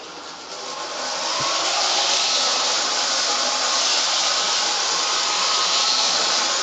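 K-Line O-scale model steam locomotive running round its track with a steady hissing noise that builds over the first second or so and then holds.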